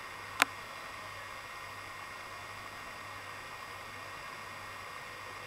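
Steady hiss of quiet room tone, with a single sharp click about half a second in.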